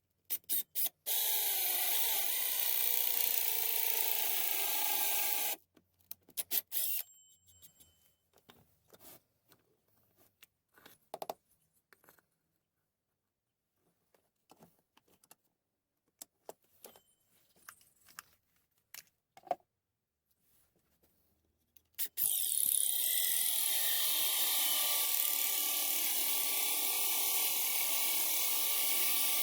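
Pillar drill cutting into pallet wood in two long runs, one of about four seconds near the start and one of about seven seconds near the end, with scattered clicks and knocks of work being handled in between.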